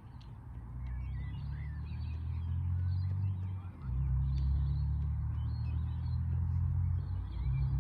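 Many small birds chirping and twittering in short calls, over a steady low drone that grows louder over the first few seconds and dips briefly about halfway through; the drone is the loudest sound.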